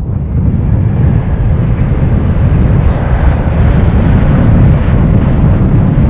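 Boeing 787 jet engines running loud and steady: a deep rumble with a hiss above it.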